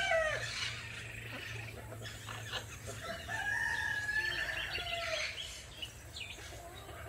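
A rooster crowing. The end of one crow falls away right at the start, and a second, quieter crow is held for about two seconds from about three seconds in.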